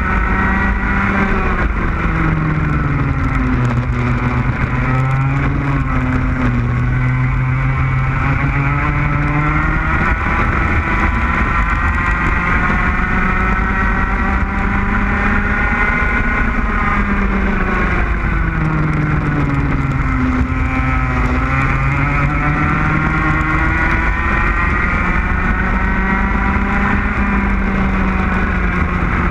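Racing kart's engine running hard through a lap, its pitch falling twice as it slows for corners and climbing again as it accelerates out.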